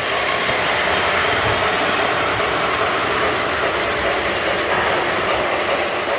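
O scale model passenger train rolling along its track close by, a steady rumble of wheels on the rails.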